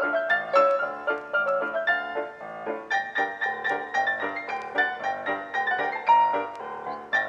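Background piano music: a continuous run of quick struck notes, moving to a higher register about three seconds in.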